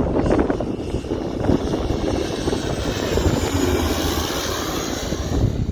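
A low-flying airliner's engines: a deep rumble with a high hissing whine that grows louder, then cuts off abruptly at the end.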